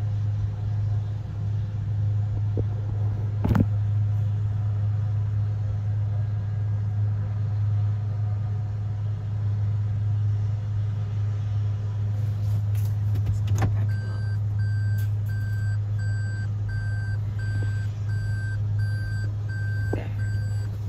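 An engine running steadily with a low, even hum, with a few knocks. About two-thirds of the way in a regular electronic beep starts, about two beeps a second.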